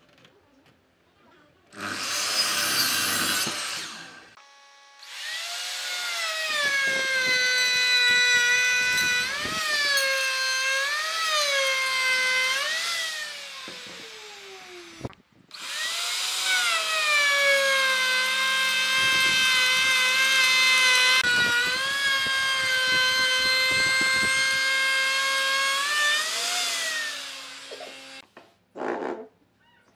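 Pine board cut through on a compound miter saw in a short burst. Then an electric router runs at high speed in two long stretches, its whine dipping in pitch several times as the bit cuts a profile along the pine edge.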